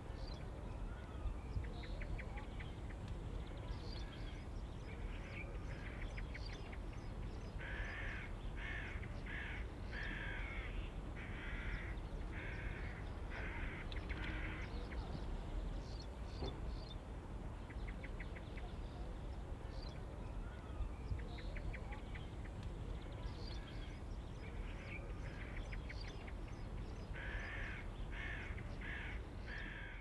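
Hooded crows cawing: a run of about seven harsh caws about a quarter of the way in and four more near the end, with fainter rapid ticking calls in between, over a steady low background rumble.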